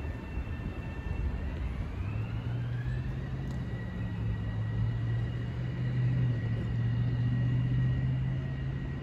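Metro-North electric multiple-unit commuter train pulling away and picking up speed. Its traction motors give a high whine that rises in pitch over a couple of seconds and then holds steady, over a low hum and rumble.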